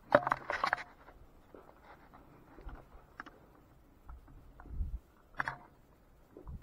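Handling and climbing-gear noise: a quick clatter of clicks and scrapes in the first second, scattered light ticks, a low rumble near five seconds, then a second short clatter of clicks.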